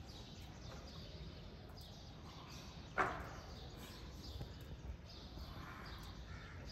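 Birds chirping over steady outdoor background noise, with many short falling chirps repeating, and one sudden loud thump about three seconds in.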